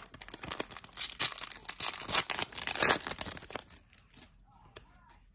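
Foil Yu-Gi-Oh booster pack wrapper being torn open and crinkled: a dense crackling for about three and a half seconds, then a few light ticks.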